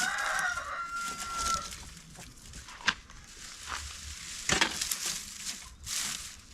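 A rooster crowing once, its long held note breaking off about a second and a half in, followed by scattered sharp clicks and knocks.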